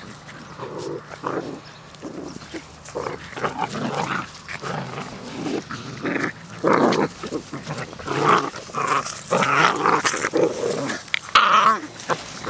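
Puppies growling and yipping in short, uneven bursts as they play-fight, busier and louder in the second half.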